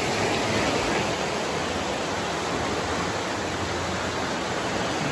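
Fast spring-fed stream rushing over rocks, a steady, even water noise.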